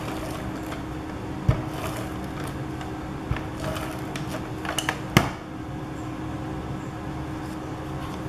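Scotch ATG tape gun run over the back of a paper card, laying double-sided adhesive, with a few sharp clicks and a loudest snap about five seconds in. Quieter paper handling follows.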